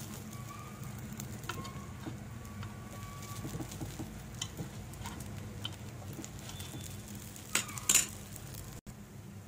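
A thin metal spoon clicking and scraping against a nonstick paddu (appe) pan as ragi paddu are turned over in their cups, with light sizzling of the frying batter over a steady low hum. There are two louder scrapes near the end.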